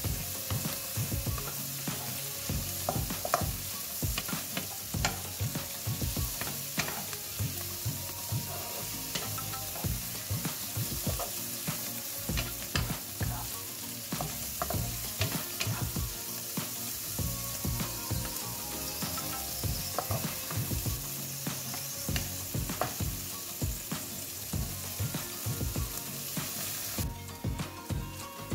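Shrimp, chilies and onion sizzling in a hot nonstick wok while a wooden spatula stirs them, with frequent clicks and scrapes of the spatula against the pan. The sizzle cuts off abruptly near the end.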